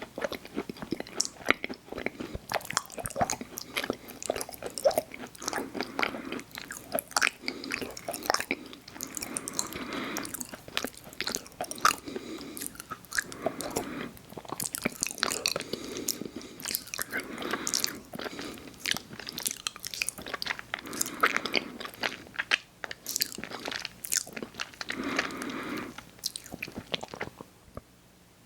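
Close-miked mouth sounds of someone eating chewy chocolate cookies with cream: bites and chewing, with many wet clicks and smacks in an uneven rhythm. It stops shortly before the end.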